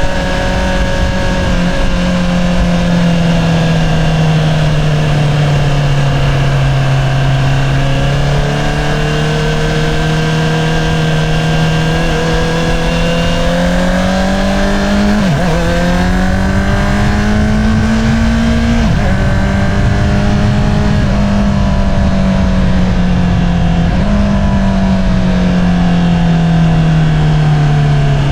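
2022 Honda CBR650R's inline-four engine through an Akrapovič single-outlet exhaust, heard from the rider's seat at road speed. The engine note sags, then climbs with two short dips near the middle, and falls slowly again near the end.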